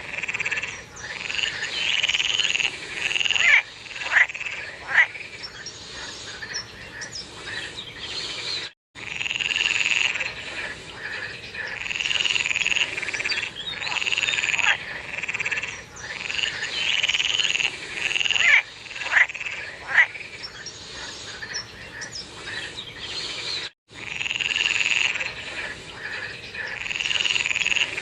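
A chorus of frogs croaking, with overlapping repeated calls and now and then a sharper, louder call standing out. The sound cuts out for an instant twice, about a third of the way in and near the end.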